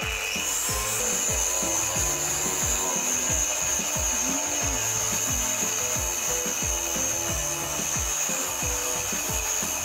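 Angle grinder starting up just after the beginning, then grinding against the car's steel wheel-arch edge with a steady high whine. Background music with a steady beat runs underneath.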